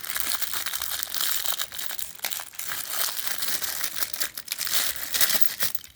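Paper wrapping crinkling and rustling as it is handled and pulled apart, with many small crackles, stopping just before the end.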